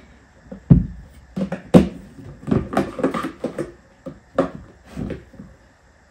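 A string of sharp plastic knocks and clicks as a tall plastic flour container is handled and its lid taken off, then a plastic measuring cup scooping flour from it. The loudest knocks come about one and two seconds in.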